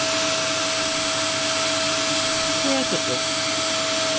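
A 1600-watt wet-and-dry vacuum cleaner running as a workshop dust extractor: a steady motor whine over rushing air, with a few light knocks about three seconds in.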